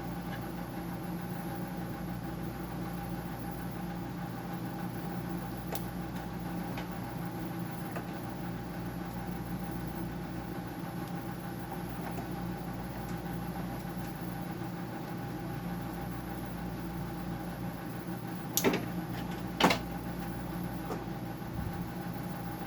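Steady hum of a running machine, with several even tones. Two sharp knocks near the end come from parts being worked loose during the teardown.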